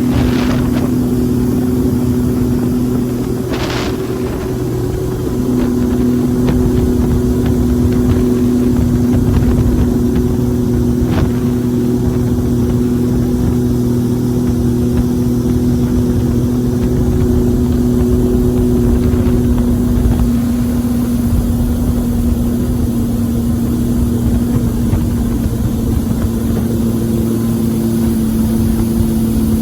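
Boat engine running steadily under way, its pitch dipping briefly about four seconds in and then steadying again.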